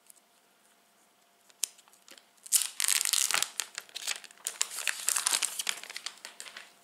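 Clear plastic shrink-wrap being torn and pulled off a phone box, crinkling loudly for about four seconds after a few light ticks.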